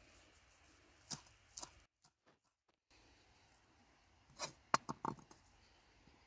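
Kitchen knife knocking and tapping on a wooden cutting board as chopped herbs are gathered and scraped off the blade: two light knocks about a second in, a short dead gap, then a quick cluster of sharper knocks between four and five seconds in.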